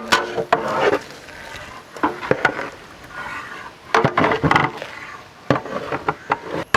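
Metal ladle stirring chunks of chicken in thick masala in a large metal pot, with irregular knocks and scrapes of the ladle against the pot's side and bottom.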